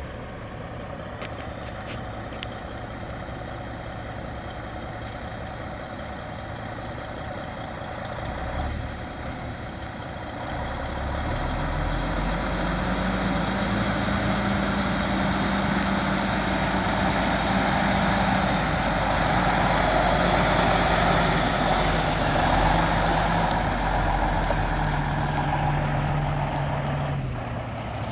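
Diesel engine of a 2015 Freightliner Coronado semi tractor running low as the truck starts off, then growing louder about eleven seconds in as it drives up across gravel, its engine note stepping up and down. The engine settles back lower near the end as the truck comes to a stop.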